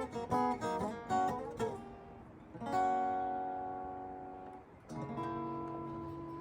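Acoustic guitar ending a song: a quick run of picked notes, then a strummed chord about two and a half seconds in that rings and fades, and a final chord near the end left ringing.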